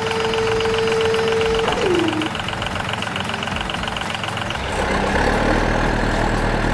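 Vehicle engine running steadily. A held tone drops in pitch about two seconds in, and a fast, even ticking stops a little after four seconds.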